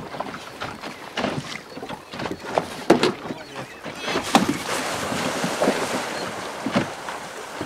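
Minke whale surfacing close beside a small boat, its blow a breathy whoosh about four seconds in. Water slaps against the hull throughout, with one sharp knock about three seconds in.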